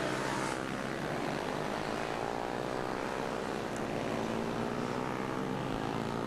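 Several 140cc air-cooled pit bike engines racing around the track. Their overlapping engine notes each rise and fall in pitch as the riders accelerate and shift.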